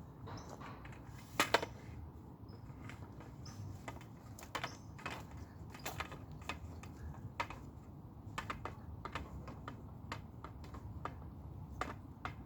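Irregular light clicks and taps of fishing tackle being handled and packed away, with a louder double knock about a second and a half in, over a steady low rumble.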